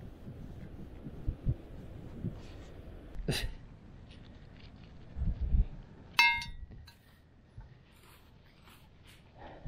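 Scattered handling knocks and low thumps close to the microphone, a sharp click about three seconds in, and one short ringing beep about six seconds in from the metal detector gear.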